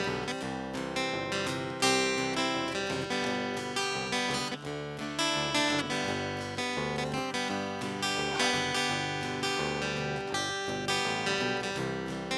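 Background music: acoustic guitar playing a steady run of plucked and strummed notes, with no singing.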